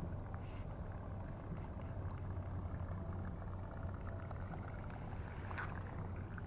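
A steady low engine-like hum that holds an even pitch, with a few faint ticks over it.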